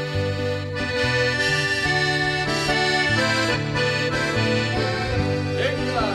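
A havanera played on accordion: held chords over a bass line that changes every second or so.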